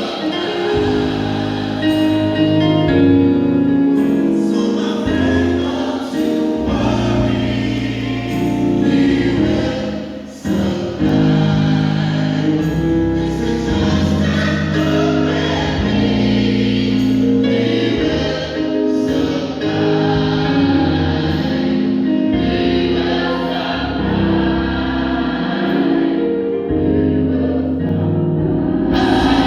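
Gospel choir singing with live band accompaniment, a steady beat and bass underneath.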